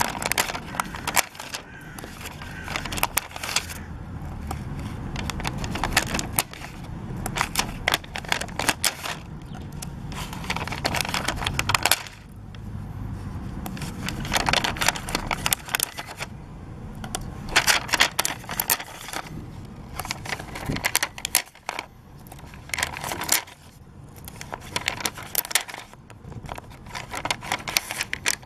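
Puffy stickers being peeled off their plastic-backed sheet and pressed onto paper: the sheet and paper crackle, click and crinkle under the fingers in bursts, with a few short pauses.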